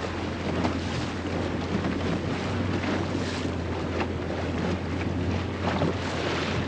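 Boat under way over shallow reef: a steady low hum under wind buffeting the microphone and rushing water.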